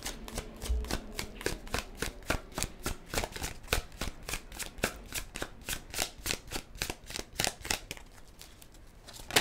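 A deck of tarot cards being shuffled by hand: a quick, steady run of soft card slaps and clicks, about five a second, tailing off near the end.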